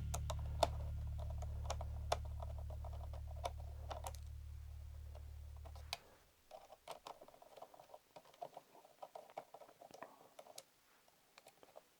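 Scattered small plastic clicks and taps from handling and turning a toy robot's knee servo parts by hand. A low steady hum fades and stops suddenly about halfway through.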